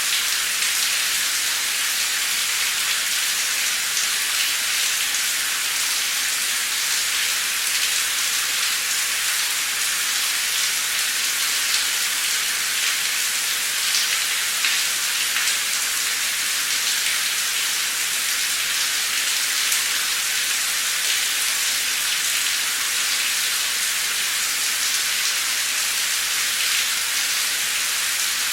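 Heavy torrential rain pouring steadily, a dense even hiss with many fine drop ticks.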